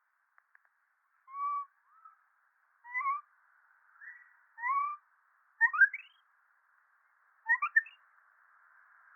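Monkey giving a series of short whistle-like calls that rise in pitch, the later ones quick, steep upward sweeps in small clusters, over a faint steady hiss.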